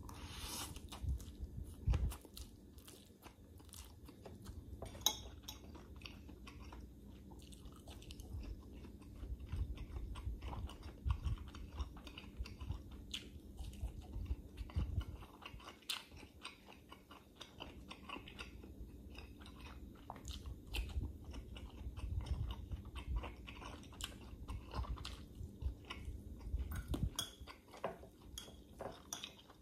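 Close-up chewing and biting as a man eats stir-fried instant pancit canton noodles and a hotdog: wet mouth sounds with scattered sharp clicks, the loudest about two and five seconds in.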